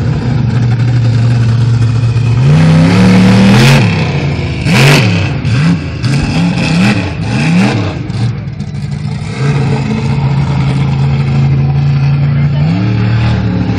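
Bigfoot monster truck's engine idling, then revving hard as the truck drives onto a row of junk cars, crushing them with two loud impacts about a second apart. It revs up and down several times while climbing across the wrecks, drops back to idle, and revs up once more near the end.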